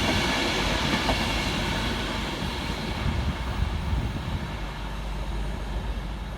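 Class 390 Pendolino electric train passing through on the fast line at speed, its rumble and wheel noise slowly fading as it moves away.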